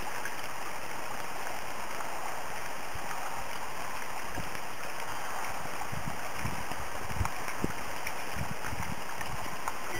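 Garden fountain water trickling and splashing steadily down tiered metal basins, with a few soft low thumps in the second half.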